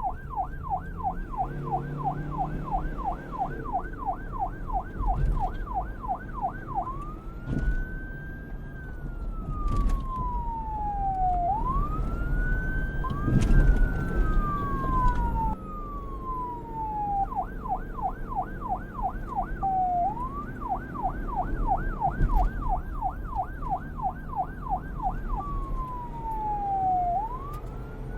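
Police car siren switching between a fast yelp, about three rising-and-falling sweeps a second, and a slow wail that climbs and then falls over several seconds, over a low rumble. It starts in yelp, changes to slow wails about six seconds in, returns to yelp past the middle, and ends on a slow wail.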